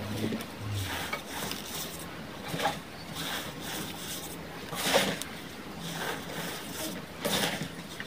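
Hands squeezing and crushing reformed gym chalk chunks in loose chalk powder. Irregular crunches, the loudest about five seconds in.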